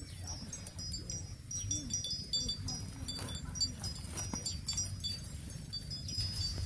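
A zebu cow grazing, tearing and chewing grass in a run of short, sharp, irregular crunches, with high chirping and a low rumble behind.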